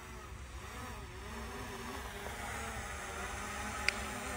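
DJI Mini 3 Pro quadcopter's propellers buzzing overhead, the whine wavering up and down in pitch and slowly getting louder as the drone is brought down. A single short, sharp tick near the end.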